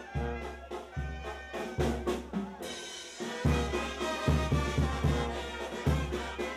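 Live Mexican banda brass band playing: a sousaphone marks the bass on each beat under trumpets and trombones, with drums. About halfway through, cymbals come in and the band gets louder and busier.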